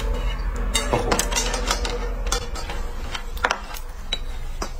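Eating noodles with chopsticks from a metal bowl: a quick run of sharp clicks and smacking sounds in the first couple of seconds, then a few scattered ones.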